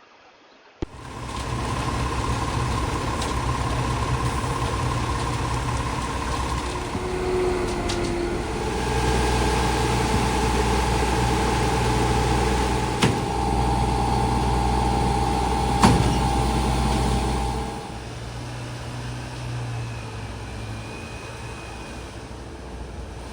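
Heavy engine running steadily with a low rumble and a steady whine, starting abruptly, getting louder partway through and dropping back near the end; on a slab pour this is machinery such as a concrete truck or pump.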